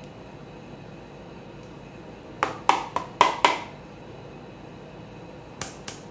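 Gloved hands handling a paper cup over a steel cold plate: two clusters of short, sharp taps and clicks, about five around the middle and three more near the end, over the steady hum of the ice cream roll machine.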